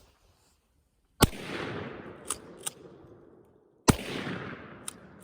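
Shotgun fired twice at a thrown clay target, about two and a half seconds apart. Each shot is a sharp blast followed by a long echoing tail, and a few short clicks come between and after the shots.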